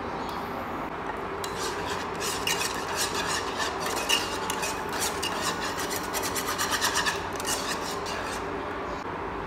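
Wire balloon whisk beating and scraping around a nonstick pan of thick kaya custard in rapid strokes, starting about a second and a half in and stopping about a second before the end, over a steady low hum.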